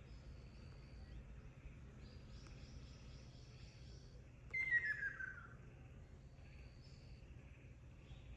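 A Ryukyu ruddy kingfisher gives one loud, descending trilled call about halfway through, lasting about a second. Fainter high, thin notes sound in the background.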